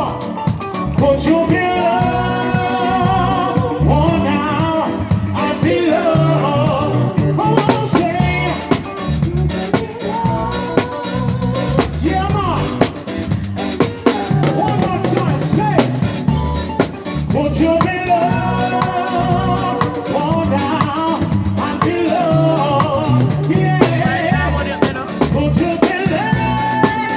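Live band playing an upbeat song with a singer, the drum kit and bass keeping a steady beat.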